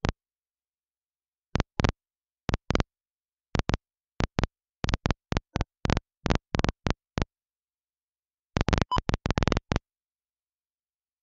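Airband radio scanner's squelch breaking open in short crackles of static, in irregular clusters with dead silence between them; the crackles stop near the end.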